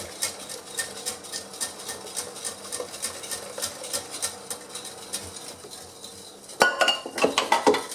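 Wire balloon whisk clicking steadily against the sides of an earthenware bowl, several strokes a second, as hot milk and cream are whisked into beaten eggs and sugar for a custard. From about two-thirds of the way in come a few louder metallic clanks with a short ring.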